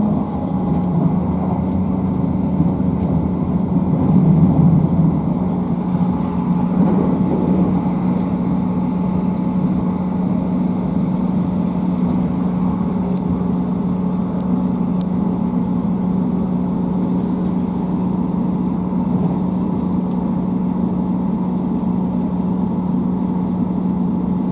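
Inside a Class 158 diesel multiple unit running on the line: the steady drone of the underfloor diesel engine, with one steady hum, over the rumble of the train's running. There are faint clicks now and then.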